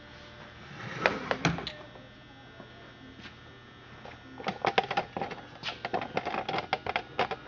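Handling noise: a few knocks about a second in, then a quick run of light clicks and knocks from about four seconds in, over a steady low electrical hum.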